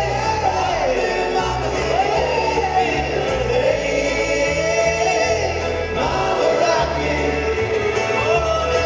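Live string-band music: fiddle, banjo, acoustic guitars and upright bass playing an up-tempo song, with voices singing along. It is heard from out in the audience of a large hall.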